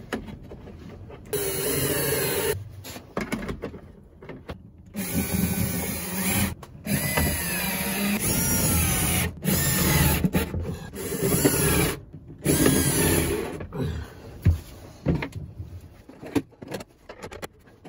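Small cordless screwdriver run in short bursts of a second or two, about six times, its motor whine rising and falling in pitch as it drives screws to fix switch and socket panels.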